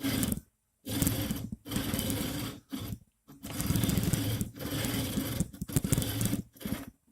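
Anet A8 X-axis carriage being pushed back and forth by hand on its smooth rods in about seven short strokes, the linear ball bearings rattling and grinding. The bearings are binding: one bearing holder sits about 0.1 mm taller than the other, so the mounting plate forces them out of line.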